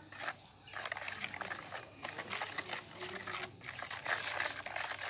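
Irregular rustling, crinkling and light clicks of ingredients and utensils being handled during food preparation. Behind them runs a steady, high-pitched drone of insects.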